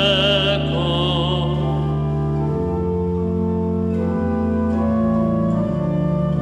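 Church organ playing sustained chords, with a man's held, wavering sung note ending about half a second in; the chords change a few times.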